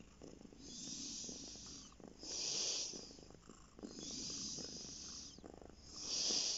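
Domestic cat purring on a lap, its purr swelling and easing with each breath about every second and a half.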